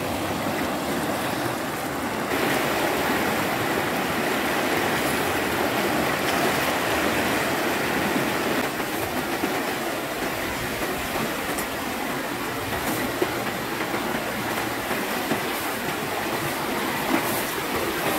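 Fast-flowing, swollen river rushing over rapids: a steady, even wash of water noise that grows a little louder about two seconds in.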